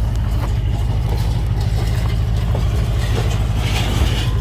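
Truck engine idling steadily, an even low rumble.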